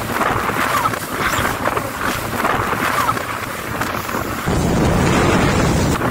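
Jet ski running at speed over choppy sea: engine and rushing water mixed with wind buffeting the microphone. The low rush grows louder about four and a half seconds in.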